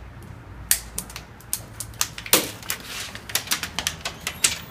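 Irregular sharp clicks and snaps of hand cutters working on nylon packing straps as the straps are handled and snipped, the loudest a little over two seconds in.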